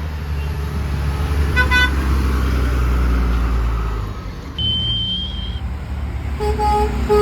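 A heavy truck passing with a deep engine rumble, a brief horn toot under it about two seconds in. A high steady whistle sounds for about a second midway, then a truck horn gives short blasts near the end.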